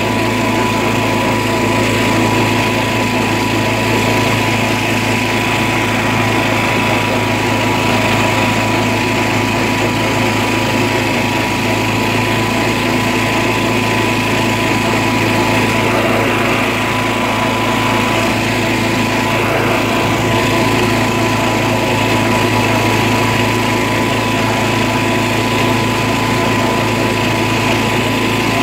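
Engine of an old John Deere riding lawn tractor running steadily while driving along, a constant drone with a steady high whine over it.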